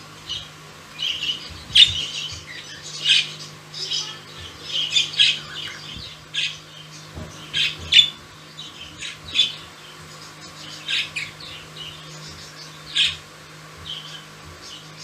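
Pet budgerigars squawking and chirping in short, sharp calls, irregular and about one or two a second.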